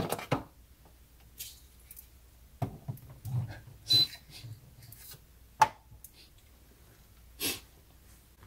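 Scattered knocks, clicks and rustles of hands handling an Instant Pot electric pressure cooker and its power cord as it is plugged in, with a short high beep about four seconds in.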